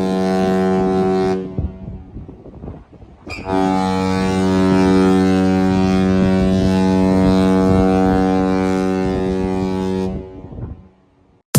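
Cruise ship's deep air horn sounding: a blast that ends about a second in, then after a short pause one long steady blast of about seven seconds that cuts off and dies away.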